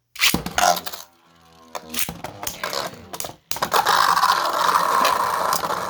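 Plastic spinning tops (Beyblades) clicking and clashing, then a steady grinding rasp from about three and a half seconds in as they spin against each other in a stadium.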